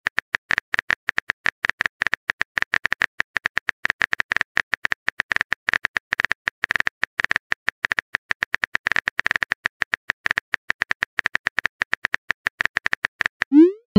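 Phone-keyboard typing sound effect: a rapid, irregular run of small clicks as a chat message is typed out. Near the end comes a short rising swoosh, the message-send sound.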